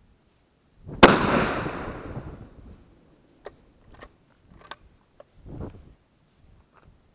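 A single rifle shot from a Howa 1500 bolt-action in 6.5 Creedmoor about a second in, its report echoing and dying away over about two seconds, followed by a few sharp metallic clicks of the bolt being worked.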